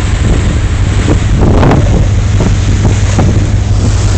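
Wind buffeting the microphone on a boat, loud, over a constant low rumble.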